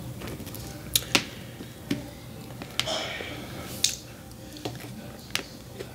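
Close-miked mouth sounds of a person eating a shrimp taco: a scattered series of sharp smacks and clicks of biting and chewing, with a short crunchy rustle about three seconds in.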